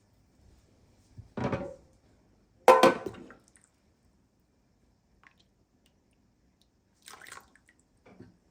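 Kitchen sounds of cooking: three short clatters and splashes, about a second and a half apart at first, the second the loudest and sharpest, then a softer one near the end.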